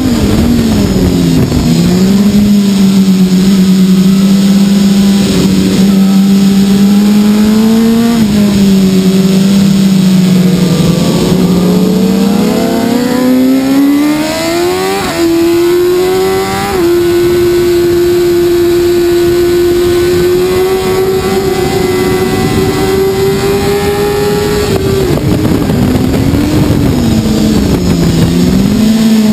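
BMW S1000RR superbike's inline-four engine under race riding, recorded on board with wind noise. The engine note holds steady, sags, then climbs and breaks twice with quick upshifts about halfway through. It then holds a higher steady note and falls away with downshifts near the end.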